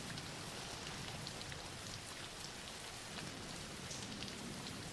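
Soft, steady rain falling on a surface, a gentle even hiss with faint scattered drop ticks.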